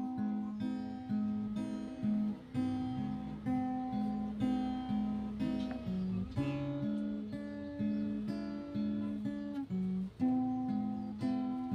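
Acoustic guitar playing an instrumental intro of repeated strummed chords.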